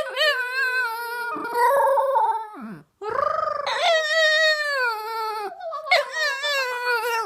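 Boston Terrier howling in long, wavering, sung-out notes: two long howls with a brief break about three seconds in.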